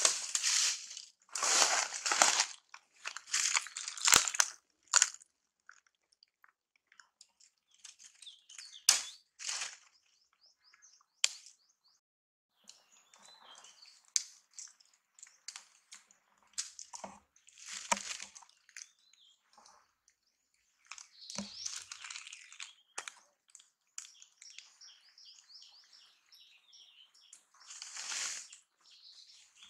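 Dry leaf litter crunching and rustling in several loud bursts over the first five seconds, then scattered crackles. Small birds chirp in the background through the second half.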